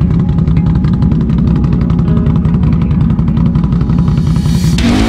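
ATV engine running hard and steady while churning through mud, with music underneath. Near the end an electric guitar riff comes in over it.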